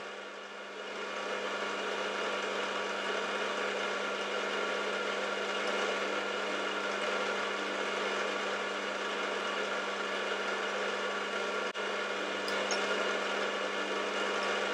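Milling machine running, its spindle turning an edge finder: a steady motor hum with several steady tones, briefly cut out once about twelve seconds in.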